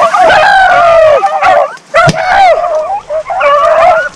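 Deer hounds baying loudly on a running deer in long, falling bawls, several voices overlapping. One sharp crack comes about two seconds in.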